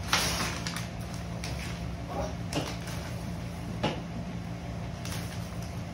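Wrapping paper being torn off a gift box by hand: a rustling rip right at the start, then a few short sharp tearing crackles spread through the rest, over a steady low hum.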